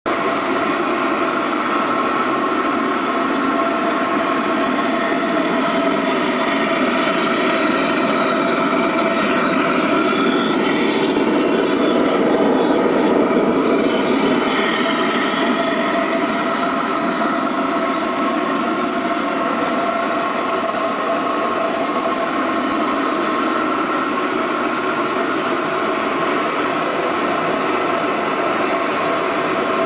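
Babington waste-oil burner running steadily: a constant rushing roar of the atomised oil flame and the compressed-air jet, with a few steady tones underneath. It grows a little louder near the middle.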